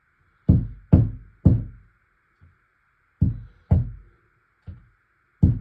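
A series of heavy, dull knocks, about eight in five seconds at uneven spacing, each dying away quickly, over a faint steady hiss.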